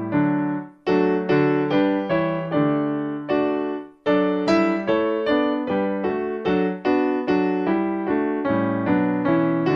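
Solo keyboard background music: a slow piano melody with notes struck about two or three a second, each fading after it is played. It breaks off briefly twice, just under a second in and about four seconds in.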